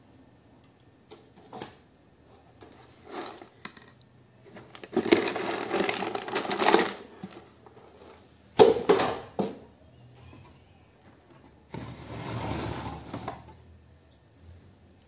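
Sheet-metal ballast housings and loose metal parts rattling and clattering as they are handled on a workbench. There are three busy bursts of a second or two each, the first about five seconds in, with a few single light clicks before them.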